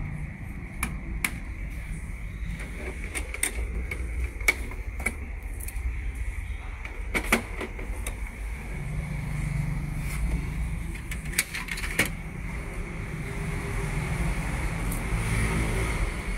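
Scattered sharp clicks and taps of the plastic parts of an Epson L3250 ink-tank printer being handled during unpacking, over a steady low background rumble.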